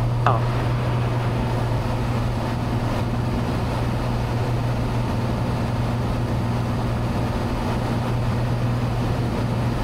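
Cessna 182's engine and propeller droning steadily in cruise flight, a constant low hum under an even rush of noise.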